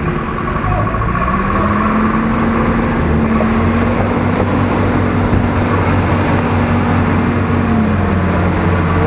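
Off-road truck engine pulling under load while wading through a flooded, muddy rut. Its pitch rises about a second in, holds steady, then drops near the end.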